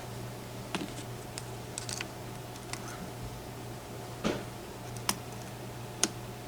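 Pin tumbler challenge lock being picked: scattered sharp clicks of the pick and pins inside the lock, a few louder ones in the second half, over a low steady hum.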